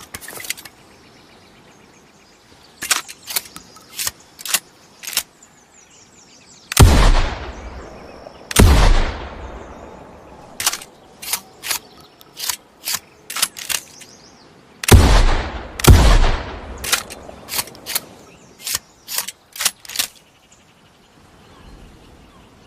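Double-barrelled shotgun: a run of short sharp clicks, then two loud shots about two seconds apart, each with a long fading rumble. After more clicks come two more shots about a second apart, followed by further clicks.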